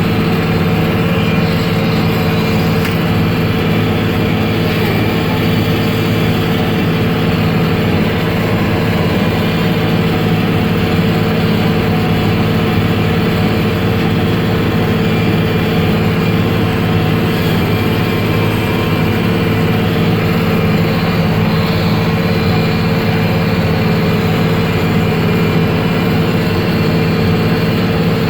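Case IH 5240 Maxxum tractor's six-cylinder diesel engine running steadily under load while pulling a small square baler through hay.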